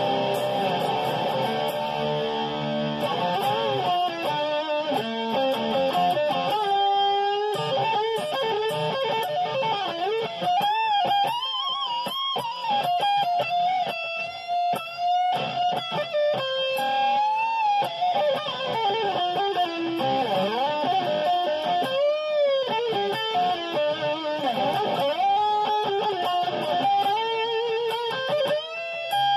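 Seven-string electric guitar, a Schecter Damien Elite 7 hybrid with an ML-style body and Floyd Rose bridge, played solo: a few seconds of chords, then single-note lead lines with bent notes and vibrato.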